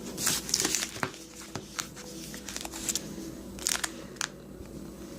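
Trading-card pack wrapper crinkling and crackling in the hands in irregular bursts, loudest about half a second in and again near four seconds.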